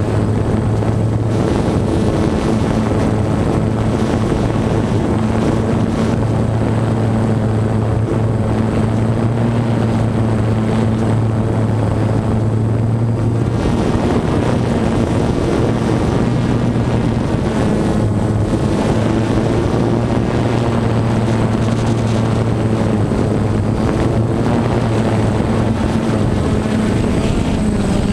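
Small multirotor drone's electric motors and propellers running steadily in flight, a loud, even buzzing hum whose pitch shifts slightly now and then.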